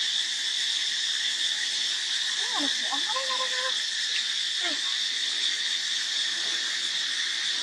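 Steady, high-pitched drone of insects, with a few brief voice-like calls with gliding pitch near the middle.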